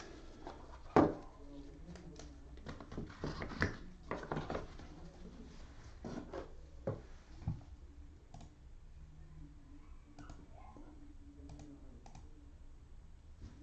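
Intermittent computer keyboard typing and clicking, in scattered taps with one sharper click about a second in.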